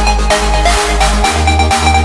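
Background electronic music with a steady beat and a deep bass line pulsing about twice a second.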